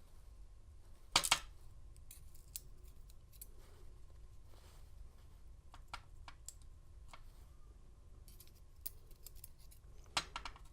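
Small metal clicks and light scrapes from an American 700 padlock's driver pins and springs being taken out of the pin chambers. The loudest is a close pair of clicks about a second in, with more clicks near the end.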